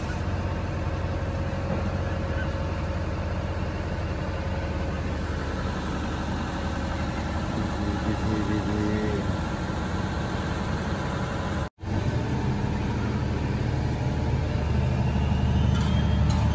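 Steady rumble of road traffic and heavy vehicle engines running. The sound cuts out for an instant about twelve seconds in, then comes back as a deeper engine drone that grows louder toward the end.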